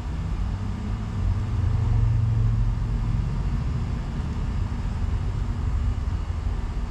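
Steady low rumble of background noise, with a deeper hum swelling between about one and three seconds in.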